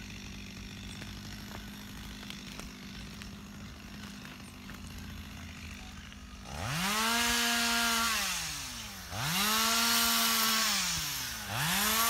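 Two-stroke chainsaw being used to cut down trees: after a faint steady background, the engine revs up to full speed about six and a half seconds in, holds for a second or two, drops away, and revs up again twice more.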